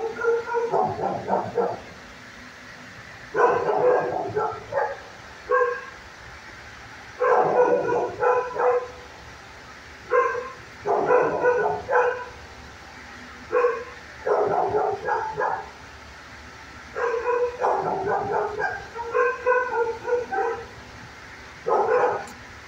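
Dog barking in repeated bouts of several quick barks, each bout lasting one to three seconds, with a pause of a second or two between bouts.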